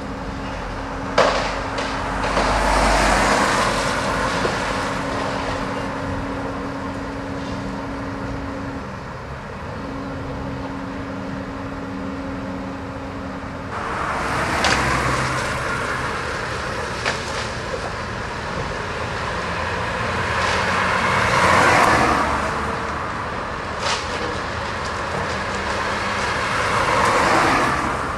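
Hydraulic excavator's diesel engine running as its boom tears into a roof, with four long swells of crashing and rattling debris and several sharp cracks of breaking timber between them.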